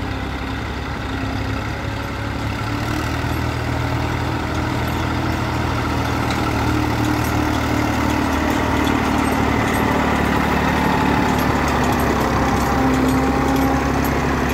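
Massey Ferguson 1035 tractor's diesel engine running steadily under load as it pulls a loaded trolley, growing louder as it draws near.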